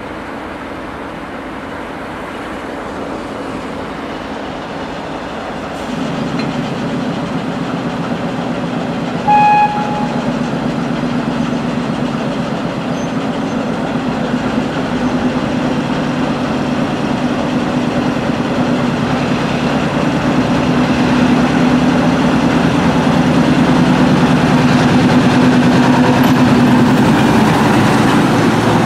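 ChME3 diesel shunting locomotive approaching and passing at low speed, its diesel engine making a steady low drone that grows louder as it draws near. A short horn blast sounds about nine seconds in.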